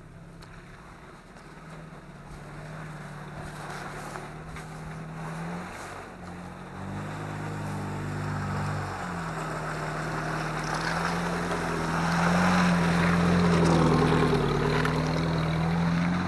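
An off-road 4x4's engine working under load, its revs stepping up and down several times and growing steadily louder, with splashing from the wheels strongest near the end.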